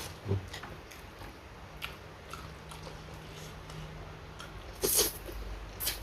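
A person chewing and biting food up close, with scattered small mouth clicks and a louder cluster of bites about five seconds in.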